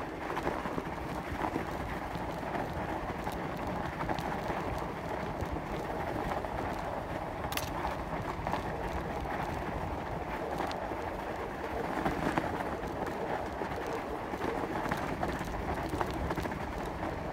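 Bicycle ridden over snow: a steady crunching of the tyres on the snowy trail, with small rattles and clicks from the bike and one sharper click about seven and a half seconds in.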